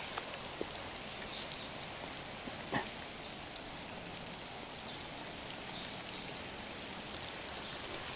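Heavy rain falling steadily, an even hiss, with one short knock nearly three seconds in.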